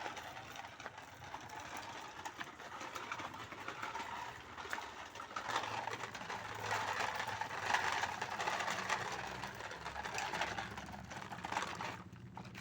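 A toy vehicle running with a steady whirring rattle full of small clicks. It grows louder in the second half and cuts off suddenly near the end.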